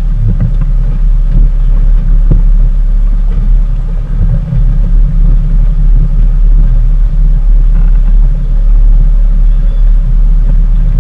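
Motorboat running underway: a loud, steady low rumble.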